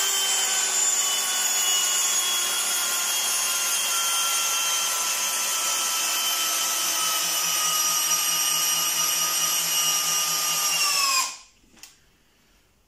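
Parkside X12V Performance 12 V brushless cordless drill-driver, in first gear with the clutch bypassed, driving a 160 mm wood screw into timber without a pilot hole: a steady motor whine that sinks slightly in pitch towards the end and stops about eleven seconds in, the screw fully driven.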